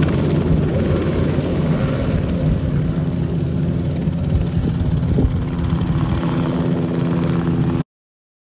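Enstrom helicopter in flight: steady rotor beat over engine hum, which cuts off abruptly near the end.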